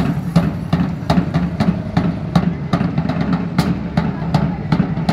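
A small engine running steadily on the street performers' wheeled contraption vehicle, with a rapid, uneven clatter of knocks over the hum.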